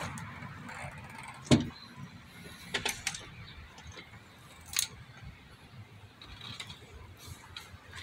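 A few sharp clicks and knocks of hard plastic and metal engine parts being handled as the upper intake manifold is lifted off the engine. The loudest knock comes about one and a half seconds in, and lighter clicks follow near three and five seconds.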